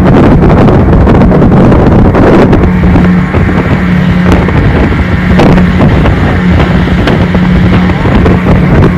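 Wind rushing and buffeting the phone's microphone on a speeding inflatable speedboat, with the boat's engine droning steadily from about three seconds in.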